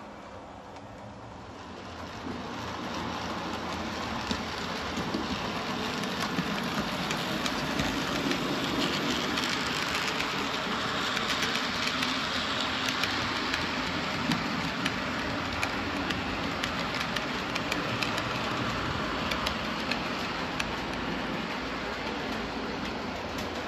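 HO scale model freight train running past on the layout's track: a steady rumble and hiss of wheels and motor with many quick clicks over the rail joints. It grows louder about two seconds in and stays loud as the train passes.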